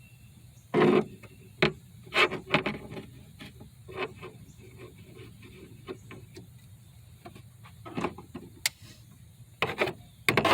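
Irregular clicks, knocks and scrapes of hand tools and metal parts being handled during a hand-tool install, the loudest a knock about a second in.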